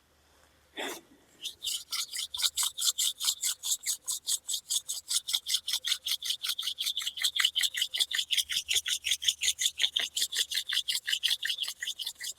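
Hand drill for friction fire: palms rubbing a wooden spindle back and forth, spinning it in the hearthboard, in fast even strokes of about five or six a second, after a single knock about a second in. Light 'floating hands' pressure, warming the wood to burn in the spindle's socket in the hearthboard.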